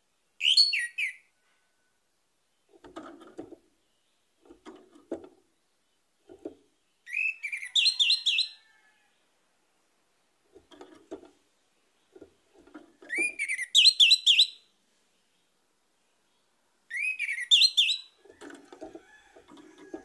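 Orange-headed thrush singing: four loud phrases of quick, high whistled notes a few seconds apart, with softer, lower sounds in the gaps between them.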